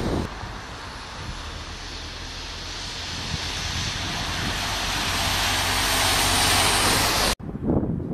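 A double-decker bus approaching on a wet road: its tyre hiss and engine noise grow steadily louder, then cut off suddenly near the end. Gusts of wind on the microphone follow.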